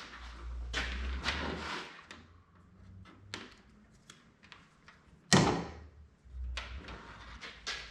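Handling noises of bulk 14-gauge wire and tools: irregular rustling and scraping, a light click, and one sharp knock about five seconds in.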